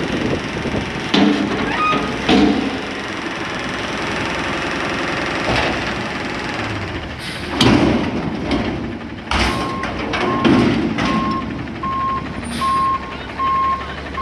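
Front-loader garbage truck's engine running steadily, with several loud metal bangs as its lifting arms and forks come down after a dump. Over the last few seconds a back-up alarm beeps at an even pace, a little under a second apart.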